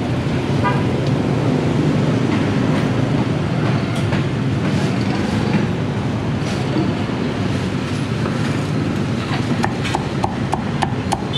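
Steady street traffic rumble. From about nine and a half seconds in, a cleaver chops roast pork on a thick wooden chopping block in quick, even strokes, about four a second.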